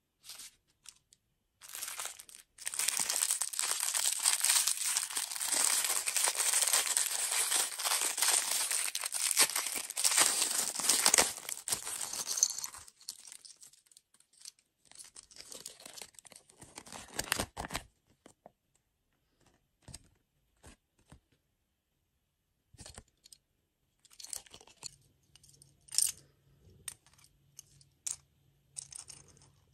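Crinkly food packaging being torn and crumpled open for about ten seconds, followed by scattered small taps and clicks.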